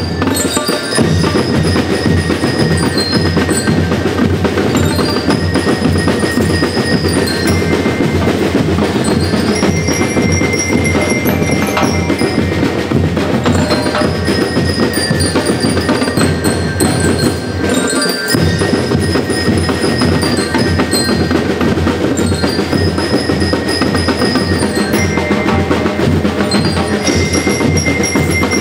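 School rhythm band playing: bell lyres ring out a short bright melody that repeats over and over, over a steady beat of snare drums.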